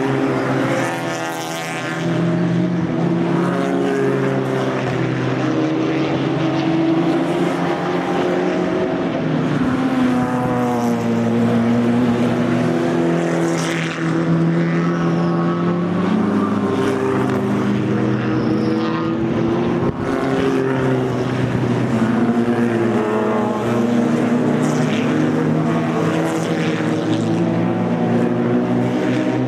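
Race cars with open exhausts passing in a stream on a circuit: several engines overlap without a break, their notes climbing through the gears and dropping away as each car goes by.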